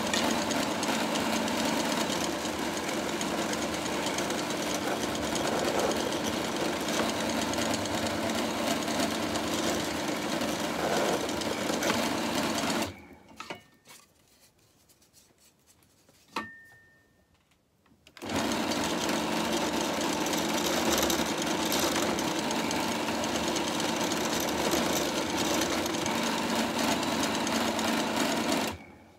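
Bench pillar drill's motor running steadily while clearance holes are drilled in MDF. It stops about 13 seconds in, a single sharp click comes about three seconds later, and it runs again from about 18 seconds until it stops near the end.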